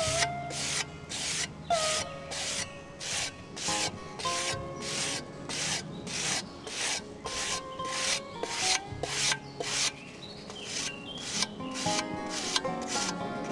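A sanding block rubbed back and forth along the freshly peened edge of an Austrian scythe blade. It makes about two short, hissing strokes a second in an even rhythm.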